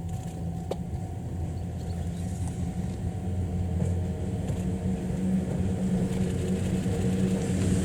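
Model freight train running on the layout track, hauled by model ED71 electric locomotives: a steady low rumble of wheels and motors, growing gradually louder as the train approaches.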